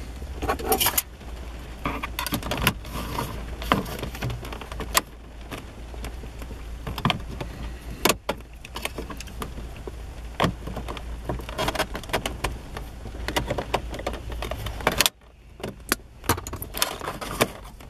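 Kenwood car stereo in its metal sleeve being worked out of the dashboard slot: irregular metallic clicks, knocks, scrapes and rattles, with a short quieter spell about fifteen seconds in.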